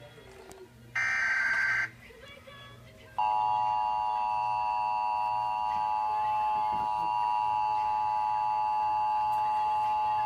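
Emergency Alert System signals: a short burst of SAME header data about a second in, then a second of quiet, then the EAS attention tone. The attention tone holds steady as a chord of several tones for about seven seconds, announcing the tornado warning that follows.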